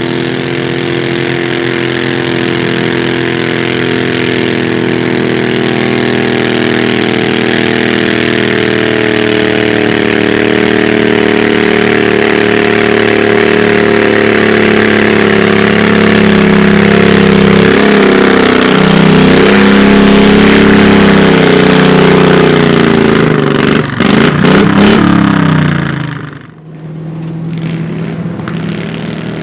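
A modified pulling garden tractor's engine running hard under load as it drags the weight-transfer sled, growing louder as it comes closer. Near the end the engine note wavers and falls, then drops off sharply to a quieter, lower running note.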